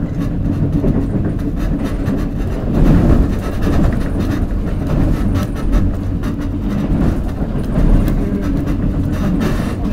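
Seoul Metro Line 1 electric subway train running, heard from inside the carriage: a steady low rumble of wheels on rails with scattered clicks and knocks.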